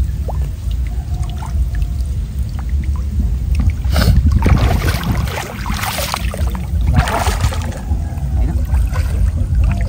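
Water splashing and sloshing as a green mesh fish trap is handled and staked in shallow floodwater, with a few louder splashes in the middle, over a steady low rumble.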